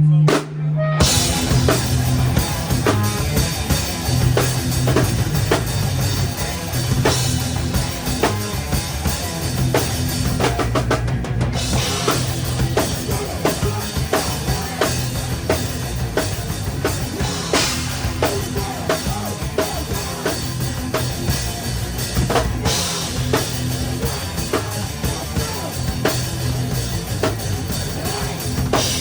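Live rock band playing loud, drums upfront as heard from beside the kit: kick and snare hits over distorted guitars and bass. A held low note breaks off about a second in as the full band comes in.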